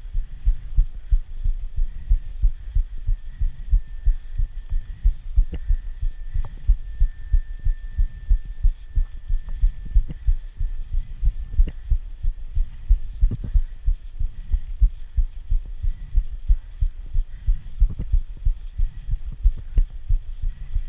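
Rhythmic low thumping, about three beats a second, from a body-worn camera bumping with the rider's pedal strokes while he climbs hard on a mountain bike. A faint steady high tone and a few sharp clicks sit beneath it.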